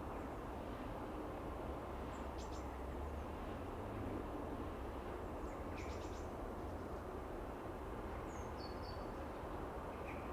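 Small birds giving a few brief, high chirps, about four scattered calls, over a steady low background rumble.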